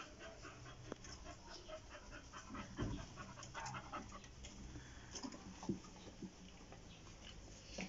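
Chow Chow dog panting in quick, soft breaths, with a few faint knocks.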